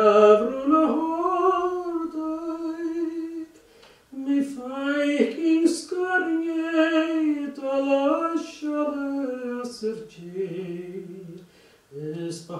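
Unaccompanied solo male singing: one voice in long, slowly gliding held phrases, breaking off for breath about four seconds in and again near the end.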